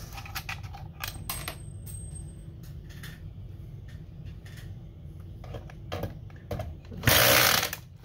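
Scattered clicks and knocks of a cordless drill/driver and loose screws being handled, then a short, loud burst of the drill/driver running about seven seconds in.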